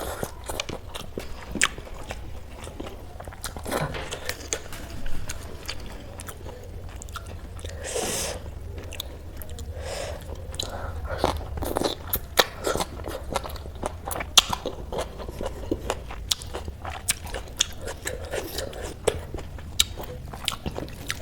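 Close-miked eating: chewing and crunching of food, with frequent short, sharp mouth clicks and smacks.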